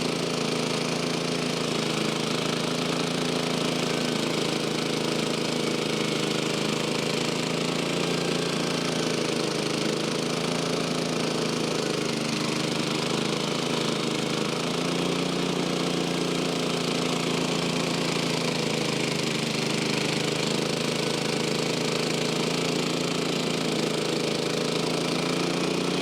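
Frontier OS23 portable band sawmill running steadily under load: its engine drives a new Cook's 10-degree band blade through a pine log, ripping 2x12 boards.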